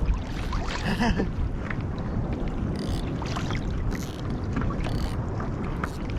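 Wind buffeting the microphone and water lapping against a kayak hull, with scattered small clicks and splashes throughout.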